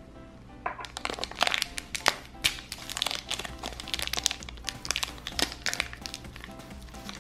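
Background music, with a run of crinkly clicks and rustles from plastic toys and a Play-Doh ice cream cone being handled, set down and picked up.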